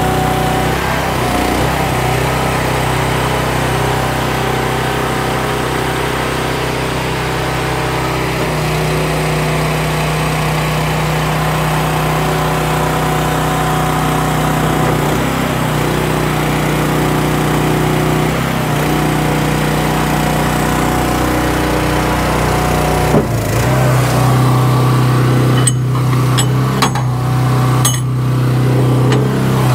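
An engine running steadily, its pitch stepping up about a third of the way in and again near the end, with a few sharp clicks in the last seconds.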